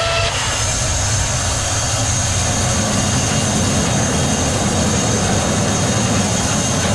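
Sawmill machinery running steadily and loudly, with a constant high whine above the noise.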